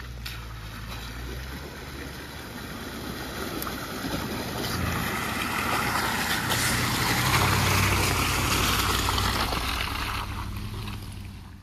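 Off-road 4x4 driving, its engine running with a low steady hum under a rushing noise from the tyres and wet ground that builds to a peak a little past the middle and then fades.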